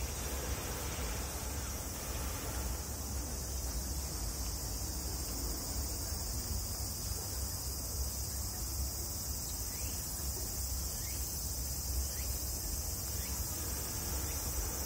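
Steady chorus of insects in the park's trees, a constant high-pitched drone without breaks, with a low rumble beneath it.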